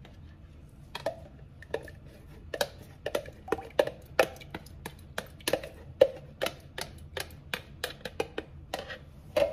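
Thick buttermilk pouring from a plastic measuring cup into a glass bowl of eggs and oil, giving a run of sharp, irregular clicks and plops, two to three a second, from about a second in.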